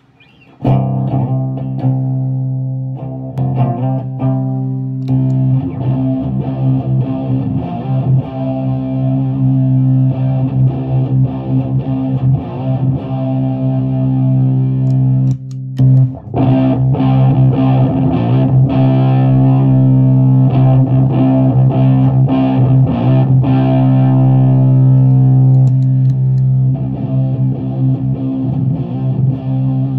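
Electric guitar, a '78 Gibson Les Paul Custom, played through fuzz pedals into a 50-watt Bridge City Sound Morrison amp and a 6x12 cabinet of Celestion V70 Gold speakers: heavy, sustained, low fuzzed chords and riffs. The playing breaks off for a moment about halfway through, then carries on.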